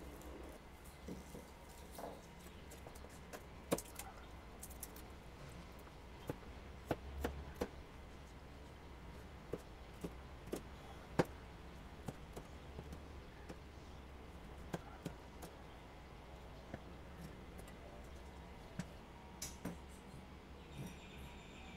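A chef's knife chopping garlic, chili and celery on a plastic cutting board: scattered, irregular taps of the blade on the board.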